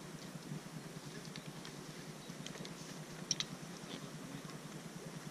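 Faint, scattered light clicks and ticks, with a louder double click a little past the middle, over a steady low rumble.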